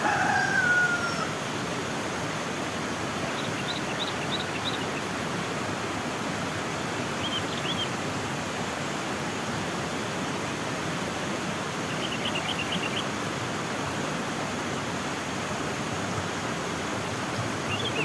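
A rooster crows once at the start, a long falling call, over the steady rush of a flowing stream. Small birds give short runs of high chirps a few times.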